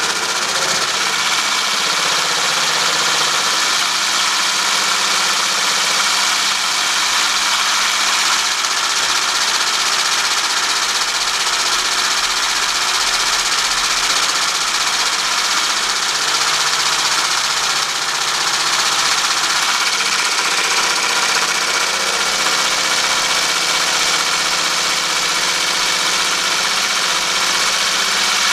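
Small, inexpensive electric blender running steadily with a continuous motor whine, whipping heavy cream into whipped cream.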